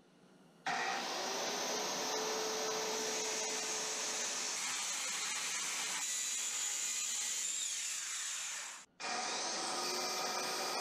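Handheld circular saw ripping lengthwise along a wooden mast blank, cutting the taper lines from one side because the blade is not deep enough to go through. A steady cutting sound starts about a second in and breaks off briefly near the end before going on.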